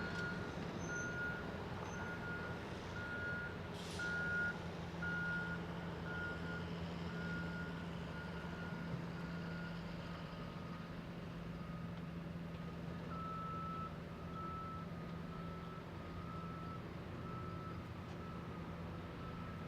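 Reversing alarm on heavy construction equipment beeping steadily, about one beep a second, over a diesel engine running steadily; about halfway through the beeping shifts to a slightly lower pitch. A short hiss comes about four seconds in.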